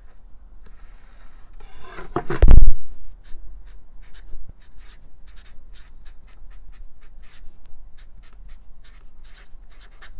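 Felt-tip marker writing and drawing on paper, a run of short separate strokes as letters and arrows are put down. One loud thump comes about two and a half seconds in.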